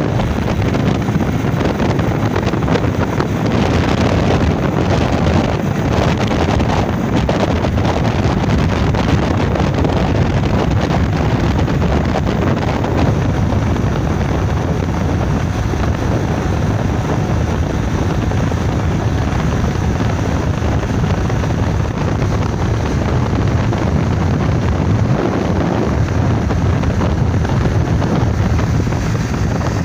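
Wind buffeting the microphone: a loud, steady rushing noise with a low rumble.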